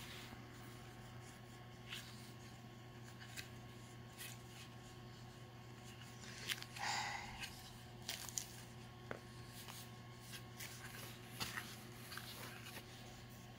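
Crayon scribbling on a coloring-book page: faint scratchy rubbing with scattered light taps, and a short louder patch about halfway through, over a steady low hum.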